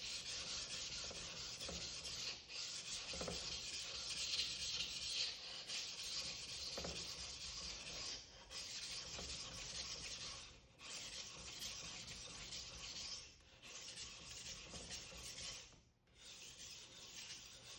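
A steel knife blade stroked back and forth across a wet 400-grit Naniwa Professional waterstone at a low angle, thinning the blade. It makes a continuous scraping hiss, broken by about five brief pauses between passes.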